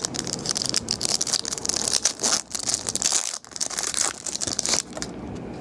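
Foil trading-card pack wrapper crinkling and tearing as it is opened by hand and the cards are pulled out; the crinkling stops about five seconds in.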